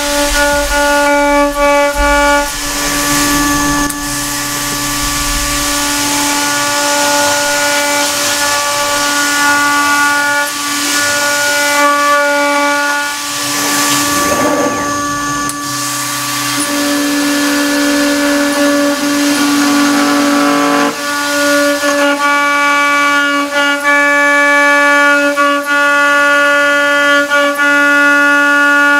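CNC milling spindle with a 6 mm single-flute end mill cutting 8 mm aluminium plate: a steady high whine with overtones that fades and returns as the cut goes on, over the hiss of the spirit-and-air mist coolant blast.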